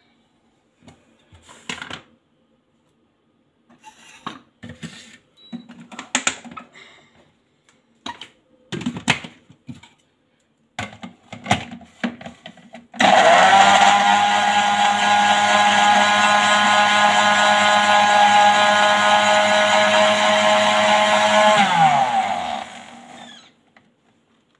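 Scattered knocks and clatter as the blender jug is set on its motor base. About halfway through, the countertop blender switches on and runs at a steady pitch for about eight seconds, blending a kiwi juice. It is then switched off and spins down, its pitch falling.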